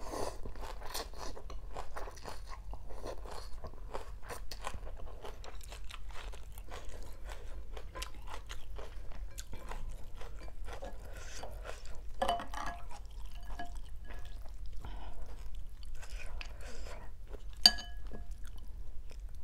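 Close-up eating sounds: wet chewing and crunching of rice vermicelli, raw greens and salmon fish cake, many small crunches in quick succession. A single sharp clink rings out near the end.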